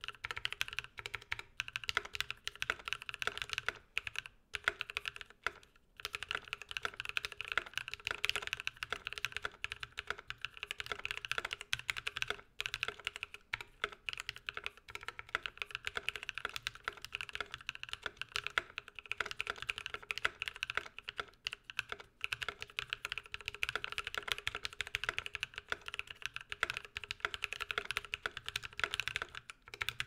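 Fast, continuous typing on an IDOBAO ID80 mechanical keyboard fitted with Novelkeys NK Cream linear switches lubed with Krytox 205g0 and PBT keycaps: a dense stream of keystrokes with no switch click, briefly pausing twice in the first six seconds.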